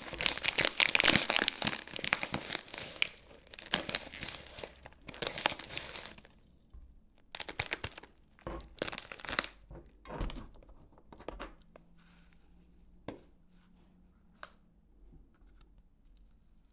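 Packaging of a pipe tobacco pack being torn open and crinkled by hand. Dense tearing and crinkling for about the first six seconds, then scattered crackles and taps that thin out toward the end.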